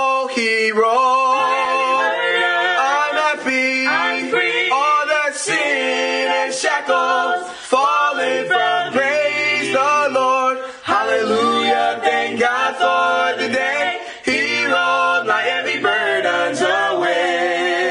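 Small mixed group of young men and women singing a gospel song a cappella in harmony, the notes held and sliding, with no clear words.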